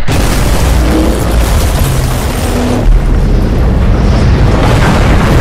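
An explosion booming and rumbling loudly throughout, heaviest in the low end, with music underneath.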